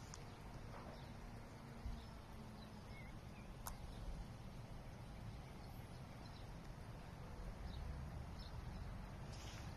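Faint outdoor background: a steady low rumble with a few faint, short high chirps and one sharp click a little under four seconds in.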